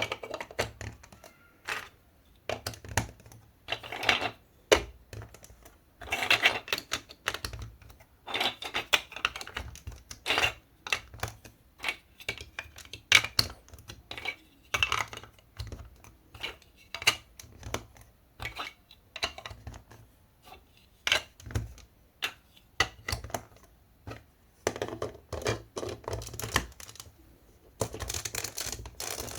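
Marble run pieces clicking and clacking: a long irregular string of sharp clicks and knocks, some in quick clusters, with short pauses between.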